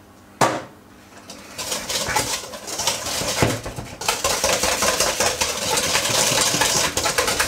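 Wire whisk beating an egg into creamed butter and sugar in a mixing bowl. One knock about half a second in, then fast, steady rattling and scraping of the wires against the bowl that starts about a second and a half in and runs on without a break.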